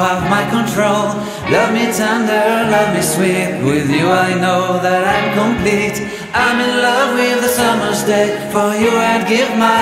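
Background music: a song with singing over instruments.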